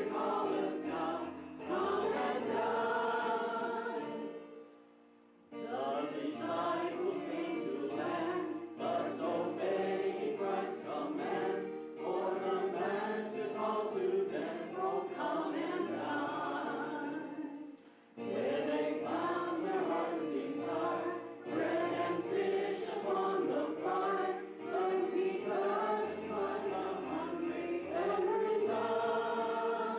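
Congregation singing a hymn together. The voices drop out briefly twice between lines, about five seconds in and again about eighteen seconds in.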